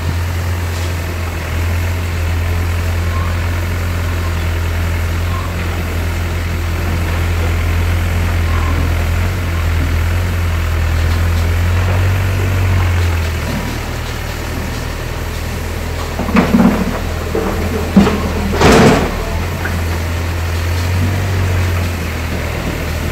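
Volvo EW60C wheeled excavator's diesel engine running steadily, working harder in the middle, with a few loud crashes of demolition rubble about three-quarters of the way through.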